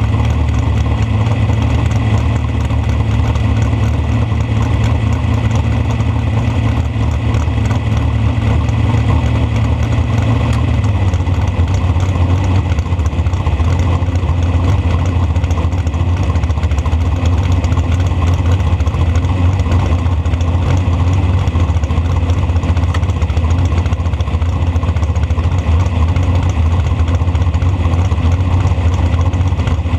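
Dragster engine idling steadily at the starting line; its note drops slightly about eleven seconds in.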